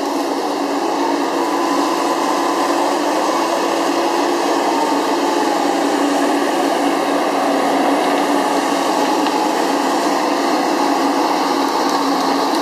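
Gremo 1050H harvester's diesel engine and hydraulics running steadily while the crane swings the harvester head, with a faint whine that rises and falls in the first few seconds.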